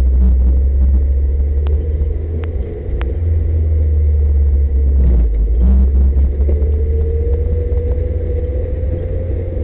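Toyota 4Runner driving slowly down a steep, rutted dirt trail, heard from a dash-mounted camera: a steady low rumble from the truck, with occasional sharp knocks and rattles as it works over the ruts. A tone rises slowly in pitch over the last few seconds.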